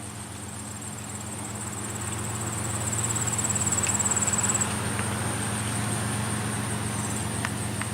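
Diesel locomotives at the head of an approaching freight train, engines droning with a steady low hum and the rumble growing louder to about four seconds in, then holding.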